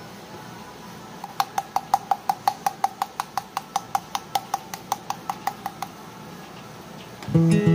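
A powdered-sugar sifter being tapped to dust sugar: a quick, even run of light ringing clicks, about six a second, for some four seconds. Strummed acoustic guitar music starts near the end.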